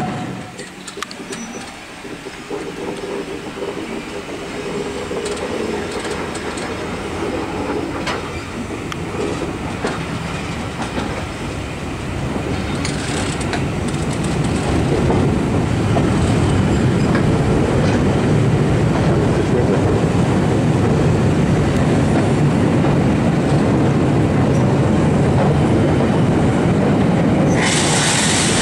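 Steam-hauled train heard from an open carriage window: a steady running rumble with wheels clattering over the rail joints and some wheel squeal, growing louder as it goes. Near the end it switches abruptly to a louder, hissier rush as a steam locomotive passes close by, trailing steam.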